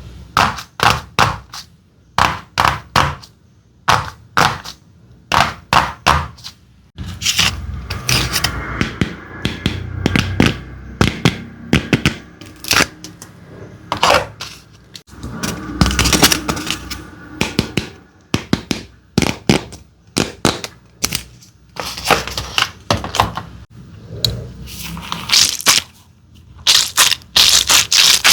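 Hard candy and slime being cut and crushed: a series of sharp cracks and thunks, well spaced at first, then denser with scraping from about seven seconds in, and quick rapid cracking near the end.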